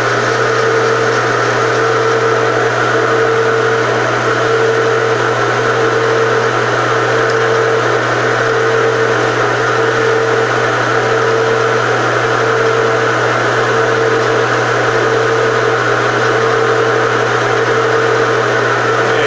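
Bridgeport vertical milling machine running steadily with its spindle turning, as used to find the edges and centre of the part: a constant hum with a steady whine and no change.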